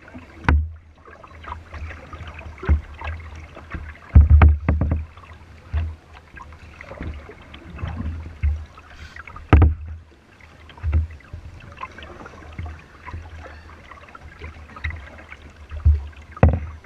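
Water splashing and lapping against a plastic sit-on-top kayak as it is paddled along a river, with irregular sharp knocks and low thumps against the hull every second or two.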